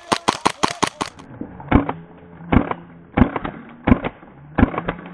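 Airsoft guns firing: a quick run of sharp shots in the first second, then short bursts of shots about every 0.7 s.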